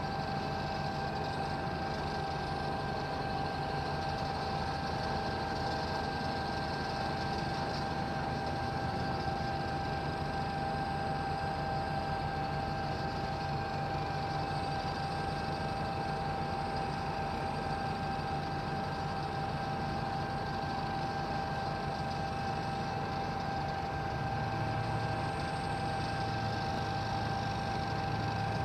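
Construction machinery running steadily, an engine rumble with a constant high-pitched whine over it.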